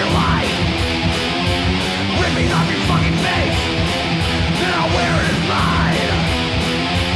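Thrash metal band playing: heavy electric guitar and bass riffing, with no vocals.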